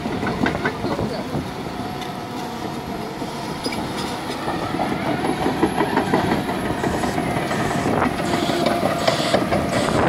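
Hitachi crawler excavator's diesel engine running while its steel tracks clank steadily as it drives through shallow seawater.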